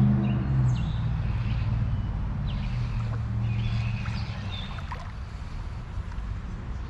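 A motor vehicle's engine drones and fades away as it passes, over a steady low rumble. A few short, high chirps are heard through the middle.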